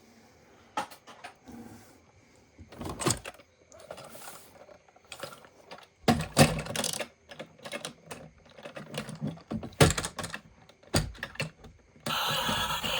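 Plastic toys and packaging being handled: irregular clicks, knocks and rustles. A loud continuous sound cuts in abruptly near the end.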